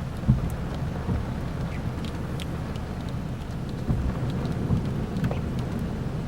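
Rain pattering and ticking in scattered drops over a steady low vehicle rumble, with a louder thump near the start and another partway through.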